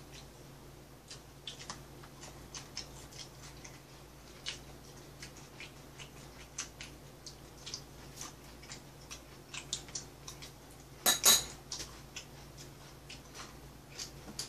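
Metal chopsticks and spoons clinking and tapping against bowls and dishes in scattered light clicks, with a louder double knock about eleven seconds in. A low steady hum runs underneath.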